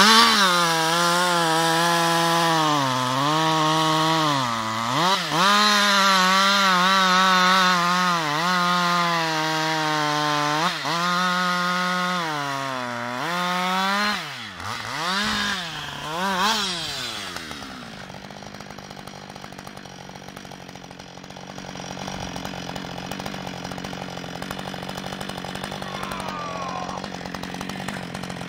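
Husqvarna 560XP two-stroke chainsaw at full throttle cutting through a conifer trunk, its pitch dipping repeatedly as the chain loads in the wood. After a few quick revs it drops to a steady idle about 18 seconds in, once the trunk is cut through.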